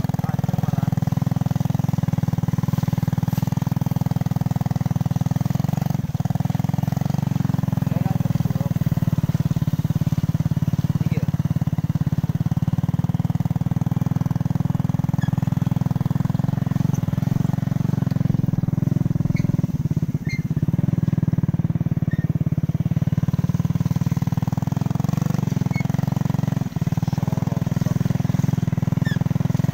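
A steady low engine drone running without change, with a few faint clicks over it.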